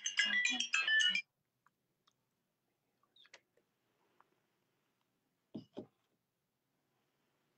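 Music with a quick regular beat cuts off suddenly about a second in. Then near quiet, with a few faint clicks and two soft knocks as a phone is handled.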